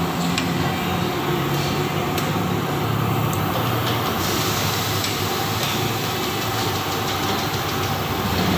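Steady engine idling, with a few light clicks over it.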